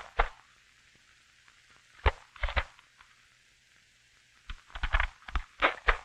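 Paper rustling and short mechanical clicks from a manual typewriter as a stack of sheets is fed in: picked up, laid on the paper table and rolled in with the platen knob. The sounds come in three bunches, the last a quicker run of clicks near the end.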